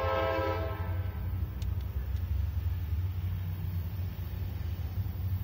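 Locomotive air horn sounding a steady chord that cuts off about a second in, over a steady low rumble that runs on after it.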